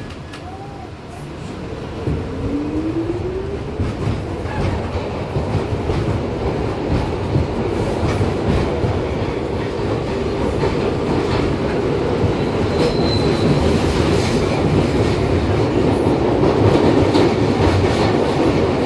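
R62 subway car pulling out of a station and picking up speed. The motors whine up in pitch early on, and the wheels clatter over rail joints, growing steadily louder. A brief high squeal comes about two-thirds of the way through.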